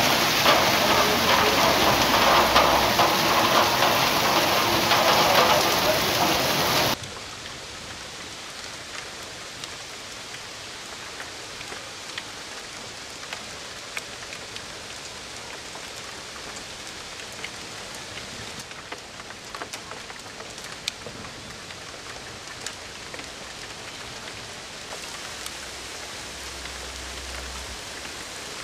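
Hail and rain falling on paving and street. For the first seven seconds it is a loud, dense downpour; after a sudden drop it becomes a quieter steady patter with scattered sharp ticks of hailstones striking the ground.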